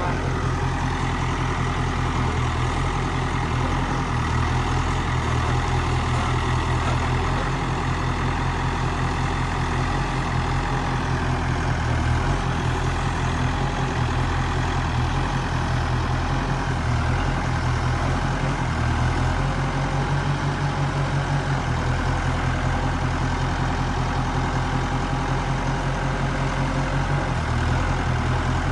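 Diesel engine of an earthmoving machine running steadily with a deep, even engine note.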